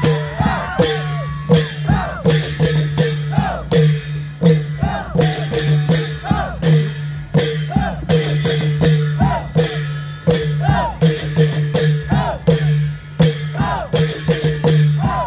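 Thai klong yao long-drum ensemble playing live: a row of long drums beaten in a fast, regular rhythm, with cymbal clashes, over a steady low drone.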